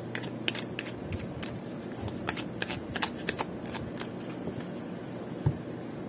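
An oracle card deck being shuffled by hand, a quick run of cards slapping and flicking against each other. There is a single soft thump near the end.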